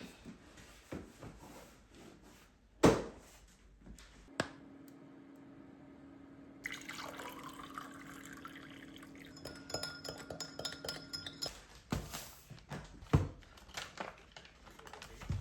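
Kitchen sounds: clinks of glass or dishes, then a steady electric hum with liquid running into a cup for several seconds, ending in a few sharp knocks.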